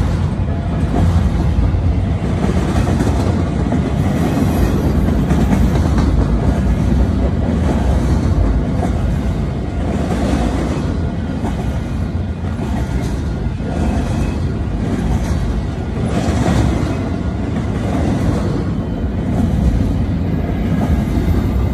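Freight train of flatcars rolling past, a steady heavy rumble with irregular clatter of the wheels on the rails.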